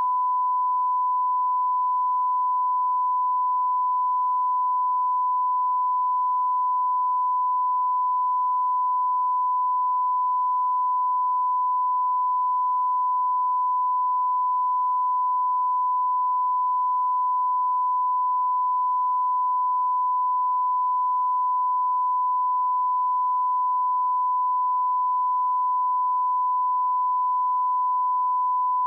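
A steady 1 kHz reference tone, one pure pitch held without change, the line-up test tone that a broadcast or studio feed carries before the programme sound is switched in.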